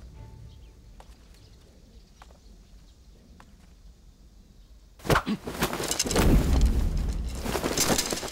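Staged film sound effects: a few faint footsteps, then about five seconds in a sudden, loud volley of arrows striking and whooshing, a dense run of sharp hits over a low rumble lasting about three seconds.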